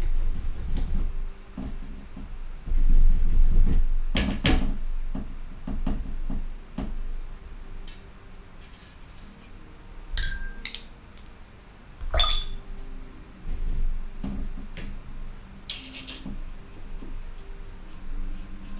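Watercolour brush and hands knocking and clinking against a ceramic mixing palette and metal paint box while paint is picked up and mixed. There are scattered sharp clinks, some ringing briefly, with soft handling rustles between.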